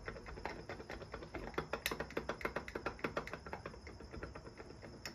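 Faint, rapid, irregular light clicking and rattling as the crankshaft of a Stihl MS200T chainsaw is turned and rocked by hand during a crankcase vacuum test. The vacuum drops as the crank is moved, the beginning of an air leak at the worn crankshaft seals.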